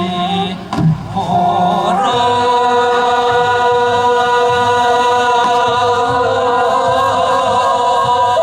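Sijochang, Korean classical sijo singing: voices holding long, drawn-out notes. There is a short break about a second in, then a new note is taken up and held steadily.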